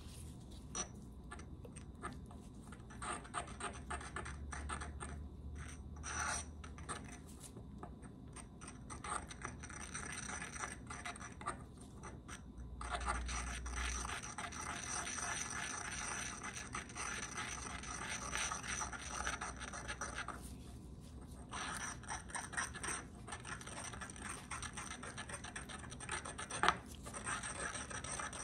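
Pestle scraping and grinding around a mortar as gum acacia powder is triturated into a base cream. The scraping is steady and rough, with two short pauses.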